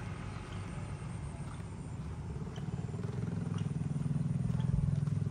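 A vehicle engine running at low revs, growing louder and rising slightly in pitch over the last couple of seconds.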